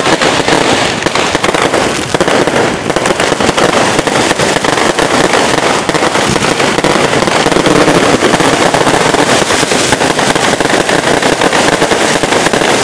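Fireworks going off in a dense, unbroken rapid crackle, many sharp pops overlapping into one loud continuous rattle.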